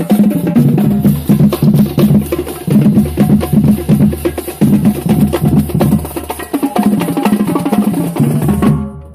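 Marching band drumline playing a cadence: rapid snare drum strokes over a pattern of pitched bass drum tones. It stops just before the end.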